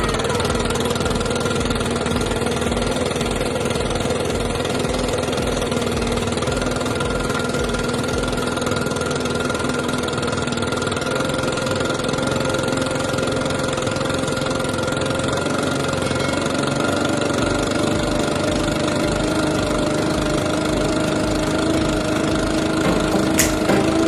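Stihl BR 600 backpack blower's two-stroke engine running steadily at low speed, its pitch edging up slightly midway. A few sharp clicks near the end.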